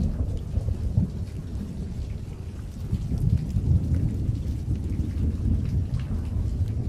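Heavy rain falling, with a low rumble of thunder rolling underneath it that swells about three seconds in.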